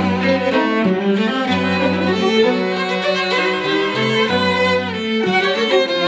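Solo cello and string quartet playing a dance passage together: bowed, sustained notes with vibrato over low notes that shift about once a second.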